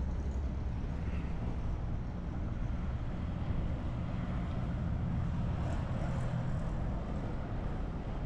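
A vehicle's engine running steadily: a constant low hum with an even rushing noise over it.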